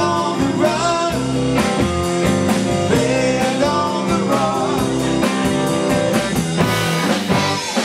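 Live band playing: electric guitar, bass guitar and drum kit, with a man singing. The drum beat drops out near the end.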